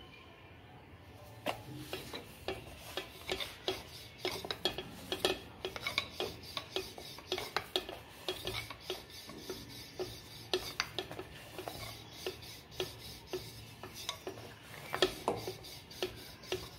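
Puran poli dough being pressed out by hand and rolled with a wooden rolling pin on a floured glass plate: irregular rubbing with many light taps and clicks against the glass.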